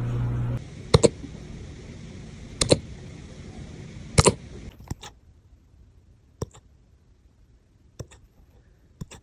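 A puppy hiccuping: short, sharp hics every second or two, some of them doubled. They grow fainter in the second half.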